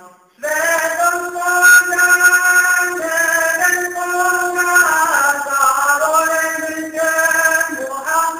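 Male voice singing an ilahija, a Bosnian Islamic devotional hymn, in long held notes, coming in after a brief pause about half a second in, with an ornamented wavering turn about halfway through.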